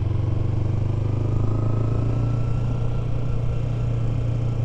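Kawasaki Ninja 250's parallel-twin engine running at a steady speed while the bike cruises, its note holding an even pitch throughout.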